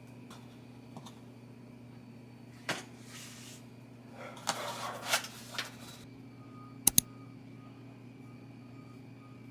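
Small handling noises in a small room over a steady low hum: a knock, some brief rustling and clattering, then two sharp clicks in quick succession about seven seconds in.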